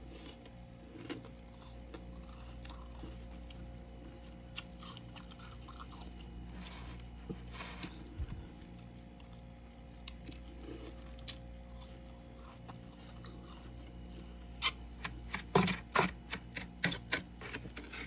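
Freezer frost crunching: scattered crisp crunches, then a quick run of loud, sharp crunches in the last few seconds as frost is scooped with a spoon and bitten. A steady low hum sits underneath.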